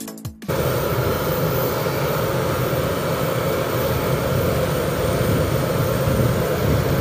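Steady, even noise of a parked jet aircraft's engines running. It starts about half a second in, as music cuts off.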